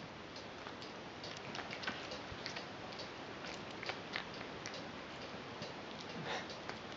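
Cat chewing asparagus: faint, irregular crunching clicks, a little louder about six seconds in.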